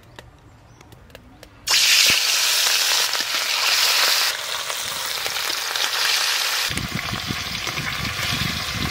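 Rohu fish steaks frying in hot mustard oil in a wok: a loud sizzle starts suddenly about two seconds in as the fish goes into the oil, then holds as a steady hiss. About seven seconds in the sizzle turns rougher, with low irregular spitting and crackling.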